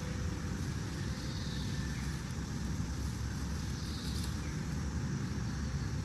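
Steady low background rumble with faint hiss above it.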